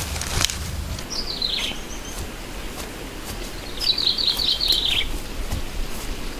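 A bird calling twice. About a second in comes a short phrase falling in pitch; about four seconds in comes a longer run of quick notes, also falling.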